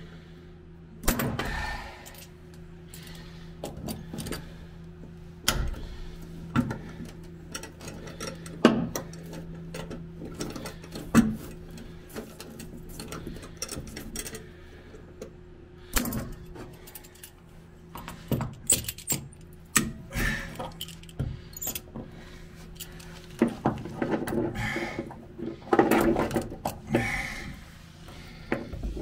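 Steel locking pliers clicking, clinking and rattling in scattered knocks as they are clamped onto and wrenched against a plastic thru-hull fitting. A steady low hum runs underneath.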